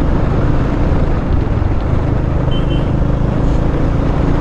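Bajaj Dominar 400's single-cylinder engine running steadily under way, mixed with wind rush on a helmet-mounted action-camera microphone.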